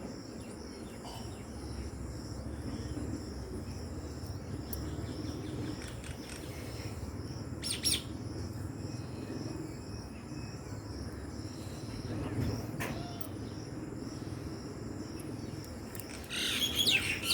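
Birds chirping over a steady low background hum: a short burst of chirps about eight seconds in, another near thirteen seconds, and a louder run of chirps near the end.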